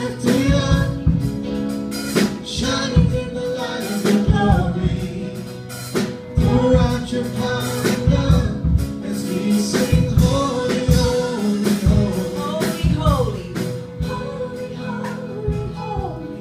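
Live praise band playing a worship song: women's and a man's voices singing together over keyboard, electric guitar and a drum kit keeping a steady beat.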